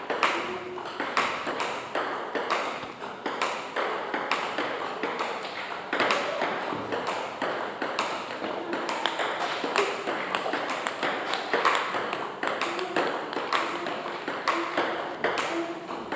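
Table tennis ball struck back and forth, clicking off rubber paddles and bouncing on the table in a steady run of sharp clicks, a couple each second.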